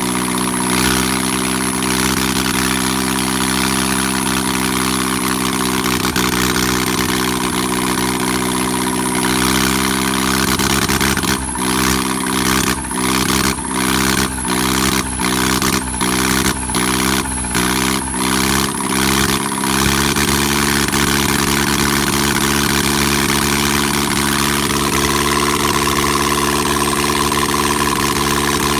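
Yanmar tractor's four-cylinder diesel engine running steadily. About eleven seconds in, its speed sags and recovers about once a second, eight times over some seven seconds, before it settles back to an even run. Near the end the pitch rises slightly.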